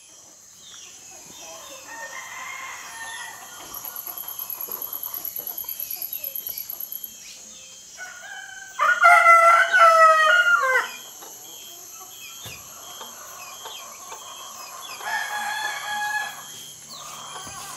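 A rooster crows once, loud, about nine seconds in, lasting about two seconds and dropping in pitch at the end. A softer fowl call follows a few seconds later, over a steady high-pitched hum and, in the first half, a pulsing high trill.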